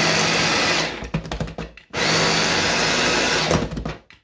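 Electric mini chopper running as it minces peeled garlic cloves, switched on by pressing down on its lid. It runs steadily, stutters in short pulses from about one to two seconds in, runs steadily again, then pulses a few more times and stops just before the end.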